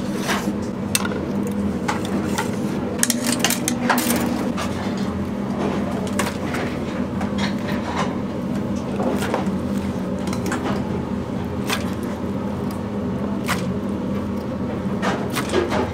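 Irregular clinks and knocks of dishes and utensils over a steady low mechanical hum.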